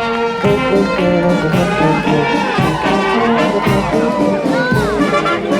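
Brass band playing a tune in a street parade, several brass instruments holding notes together in a moving melody.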